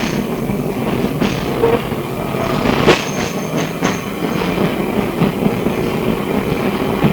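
Heard from inside the saloon of a Melbourne SW5 class tram running along the track: a steady rumble of wheels and running gear, broken by sharp clicks and knocks, a single one about a second in and a cluster around three to four seconds in.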